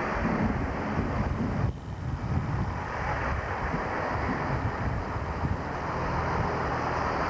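Chiltern Turbo (Class 165) diesel multiple unit running slowly past the platform: steady engine and wheel rumble, with wind buffeting the microphone.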